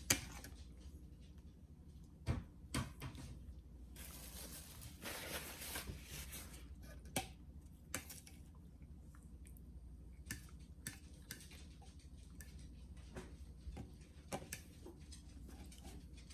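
Close-up eating sounds: soft chewing and squishing, with scattered sharp clicks and taps of a utensil on a takeout container. A rustle lasts about two seconds, starting about four seconds in.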